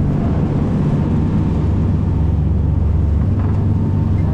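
Fishing charter boat's engine running steadily, a loud low drone.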